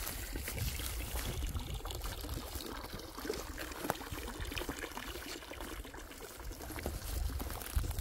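Water running or trickling steadily, under a low rumble, with a few small clicks.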